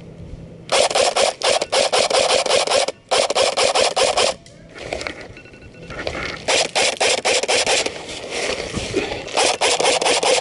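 Loud scraping and rustling of clothing and gear rubbing close to the microphone, in bursts of one to two seconds with short gaps. In the quieter gaps a faint steady electronic tone, a phone alarm, can be heard.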